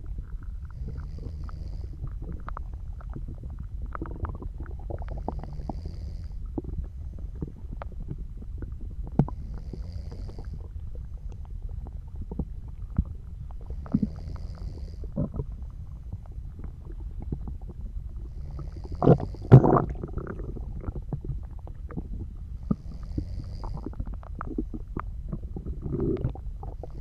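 Stomach and intestines gurgling and rumbling, with many small bubbling gurgles and two louder ones about two-thirds of the way through. Soft, slow breaths from a sleeper come about every four seconds.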